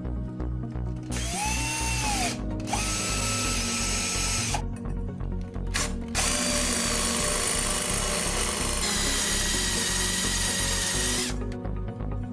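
Electric drill boring in several bursts: a short run that winds up and back down, a couple of seconds of steady drilling, a brief blip, then about five seconds of continuous drilling whose whine steps up in pitch partway through. Background music plays throughout.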